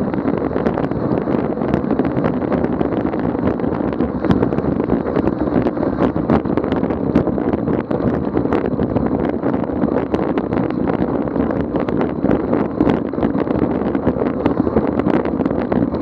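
Steady rush of wind on the microphone and fat-bike tyres running over packed snow, with many small clicks and rattles throughout.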